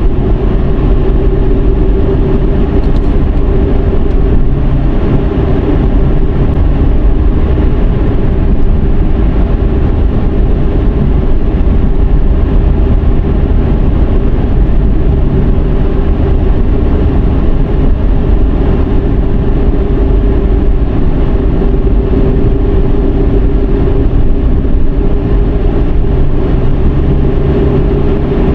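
A Dodge Charger 3.5's 3.5-litre V6 and tyres while driving: a loud, steady rumble of road and engine noise with a steady drone over it.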